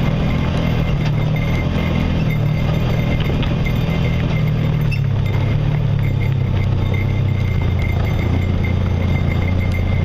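An off-road vehicle's engine runs steadily at low revs, dropping slightly in pitch about halfway through, as it travels down a rough, rocky dirt trail, with light rattles and knocks over the ground.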